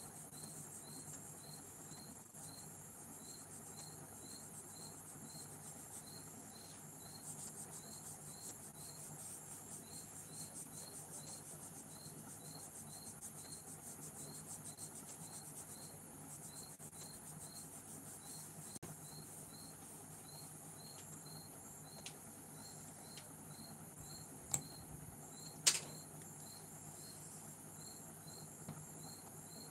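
A cricket chirping steadily, about two chirps a second, with two sharp clicks near the end.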